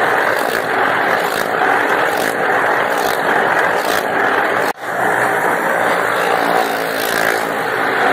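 Motorcycle and car engines running hard as they circle the wooden wall of a well of death, loud and continuous, swelling about once a second as a rider passes close on each lap. Near the middle the sound cuts out for an instant and comes straight back.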